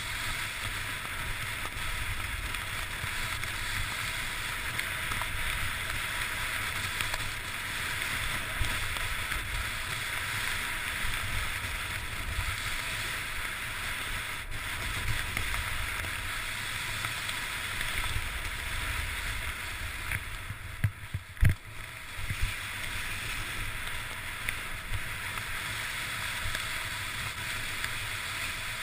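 Continuous hiss of sliding downhill over snow, with wind rumbling on the camera's microphone. A few short knocks come about three-quarters of the way through.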